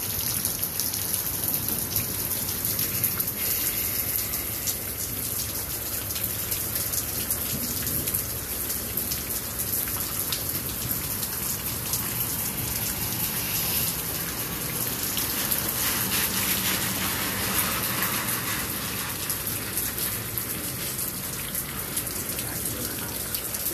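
Steady rain falling and pattering on the ground and puddles: a dense, even hiss full of small drop ticks.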